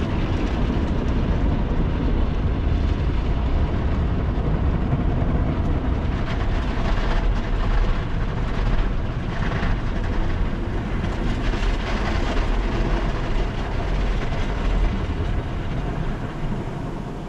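Automatic tunnel car wash running over the car, heard from inside the cabin: water spraying and washing across the glass and body over a steady low rumble of the wash equipment. It eases slightly near the end.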